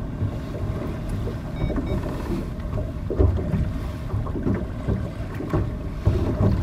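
Wind buffeting the microphone out on the water: an uneven low rumble in gusts, with a faint steady hum underneath.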